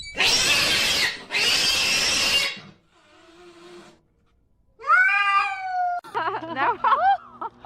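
Cat vocalising: two long hissing rushes, then after a pause one long meow that rises and falls, followed by a quick string of short, high mewing calls.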